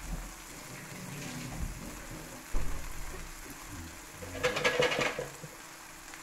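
Grated cheese frying in a frying pan with a faint, steady sizzle. A dull knock sounds about two and a half seconds in, and a short rattling clatter follows about two seconds later.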